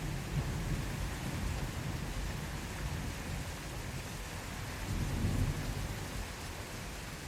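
Steady rain falling, with soft, low thunder rumbling underneath. The rumble swells about five seconds in and eases off toward the end.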